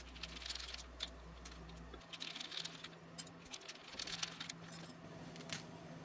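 Small precision screwdriver turning tiny screws out of a speedometer circuit board: faint scratchy turns and light clicks, with the odd rattle of the small metal and plastic parts being handled.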